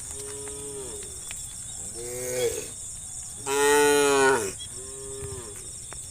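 Four drawn-out animal calls, each under a second long, rising and then falling in pitch. The third, about halfway through, is the loudest. A steady high-pitched hiss runs underneath.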